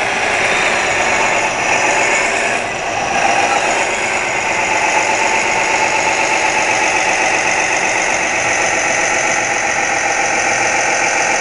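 Electronic sound module of a 1:16 RC model playing a steady, loud diesel engine sound through its speaker, the rumble and knock of a running diesel.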